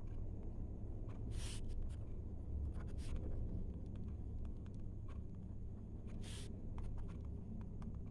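Handwriting: short scratching strokes of writing over a low steady hum, with three louder scratches about a second and a half in, three seconds in and six and a half seconds in.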